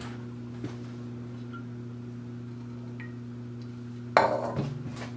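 A steady low hum, then about four seconds in a short clatter as a small glass bowl knocks against a metal cooking pot while cooking oil is tipped in, followed by a few light clinks.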